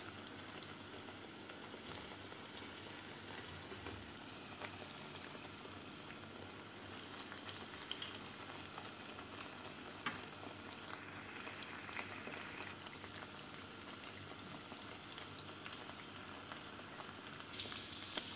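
Oil sizzling steadily around eggplant slices in a gram-flour batter as they fry in a pan, with a few small pops here and there.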